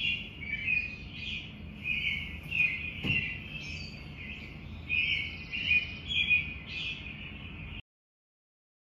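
Many small birds chirping at once in a dense, busy chatter, with a soft knock about three seconds in. The sound cuts off suddenly near the end.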